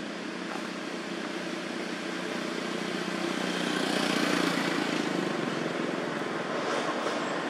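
Distant motor traffic: a steady engine hum and hiss that swells about four to five seconds in, then eases.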